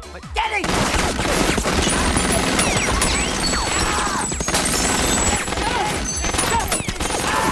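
Rapid, sustained gunfire, many shots in quick succession, starting about half a second in and continuing almost without a break.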